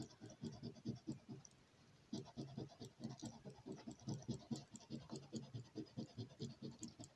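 A coin scratching the coating off a scratch-off lottery ticket in quick strokes, about five a second, with a short pause about a second and a half in.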